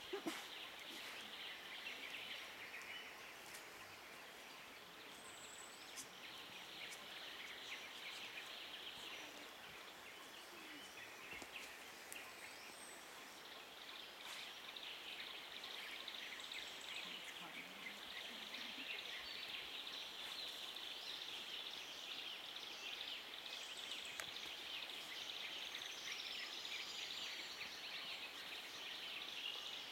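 Forest ambience: a steady, high chirring chorus with scattered short bird whistles and one whistle gliding downward near the end. A brief knock right at the start.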